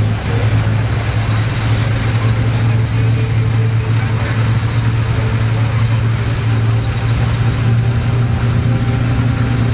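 Engine of a WWII tracked military vehicle running steadily, a loud, even low drone.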